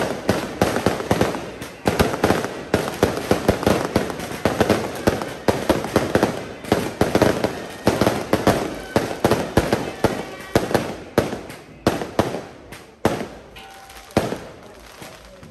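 Strings of Taiwanese firecrackers going off in a dense, rapid crackle of bangs, thinning to a few separate bangs for the last few seconds.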